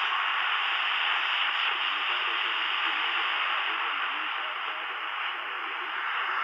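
Sony ICF-SW10 analog shortwave receiver giving a steady hiss of static through its small speaker, with a weak, fading station faintly audible under the noise.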